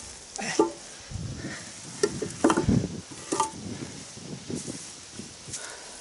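Heavy old wooden beams knocking and thudding as they are shifted and dropped in grass, several knocks with the heaviest, deepest thud about two and a half seconds in, then grass rustling.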